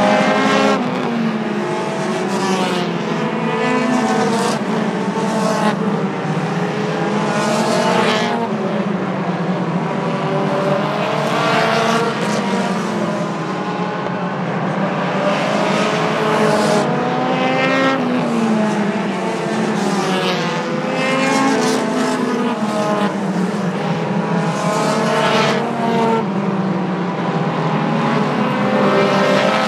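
A pack of pure stock race cars running laps on a short oval, several engines rising and falling in pitch as cars pass one after another.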